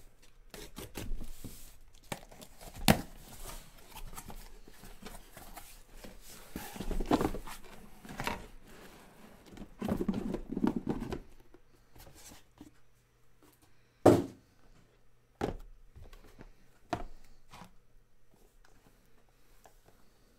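Packing tape on a cardboard case of trading-card boxes being slit and torn open, with cardboard flaps scraping and rustling. Two sharp knocks, the louder about fourteen seconds in, as the boxes inside are handled.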